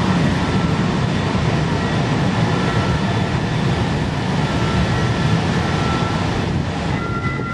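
An Atlanta Streetcar light-rail car passing along the street: a steady rumble of wheels on rails, with a faint thin whine coming and going.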